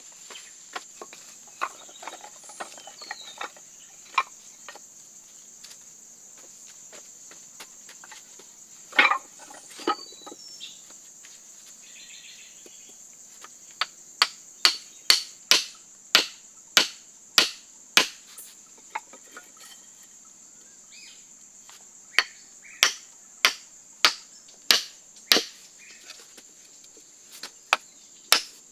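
A hammer driving upright wooden stakes in runs of sharp blows, about two a second, with a few scattered knocks before the first run. A steady high-pitched insect drone runs behind.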